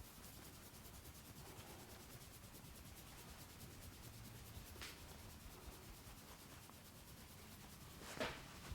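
Faint rubbing, with a soft click about five seconds in and a sharper, louder click near the end.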